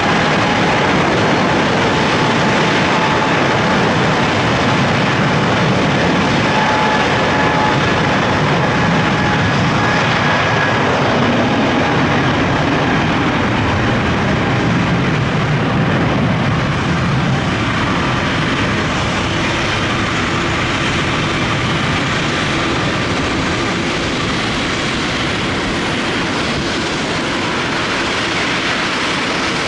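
Boeing 777 twin turbofan engines at takeoff power: a loud, steady jet roar with a high whine that rises just as it begins and then holds, the roar slowly easing in the second half.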